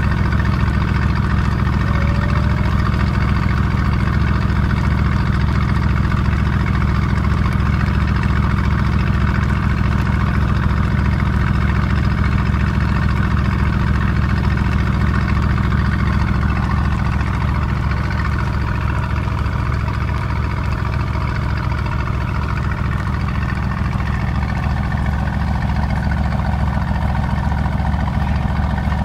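Mercedes-AMG GT S twin-turbo V8 idling steadily through its AMG Performance Exhaust, heard at the tailpipes, with no revving; the level drops slightly a little over halfway through.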